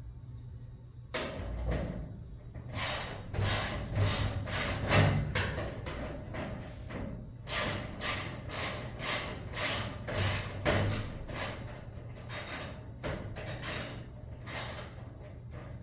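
A tool working on metal or wood in a long, steady run of short rasping mechanical strokes, about three a second, starting about a second in, over a low steady hum.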